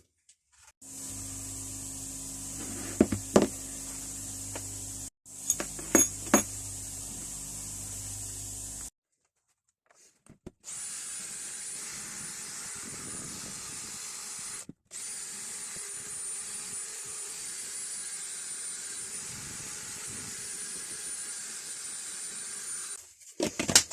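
Electric power tool running steadily in stretches broken by abrupt gaps, with a few sharp knocks about three and six seconds in. In the longer second stretch it runs with a steady high whine.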